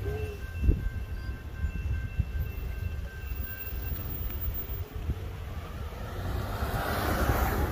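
Railroad crossing bell ringing as the gate arms go up, stopping about four seconds in. Underneath, cars rumble over the crossing, with a knock about a second in and a rush that rises near the end as a car passes close.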